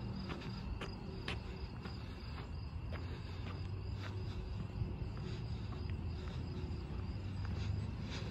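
Crickets chirping steadily in a summer night, over a low rumble. Light footsteps on the sidewalk tick through it about twice a second.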